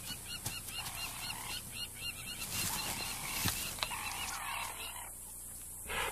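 Wild animal calls: a fast, even series of short high chirps, with a lower, longer call repeated about every second and a half. The chirping fades out a little over halfway through.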